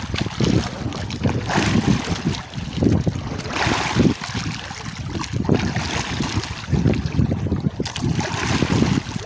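Wind gusting across the microphone at sea, with waves washing against a small boat.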